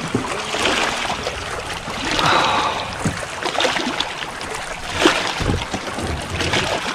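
Lake water lapping and trickling against a plastic kayak hull, with small knocks, scrapes and rustles as a largemouth bass is unhooked in a landing net.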